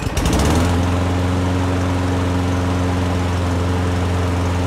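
Toro Recycler push mower's Briggs & Stratton single-cylinder engine starting up and, within the first half second, settling into a steady run. It is running a little slow, about 2600 rpm instead of 3200–3300, which the repairer puts down to a bent governor spring arm.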